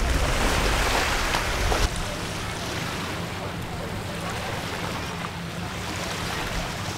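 Beach ambience: surf and wind on the microphone, loudest for the first two seconds, then after an abrupt change about two seconds in, softer water noise with a steady low hum underneath.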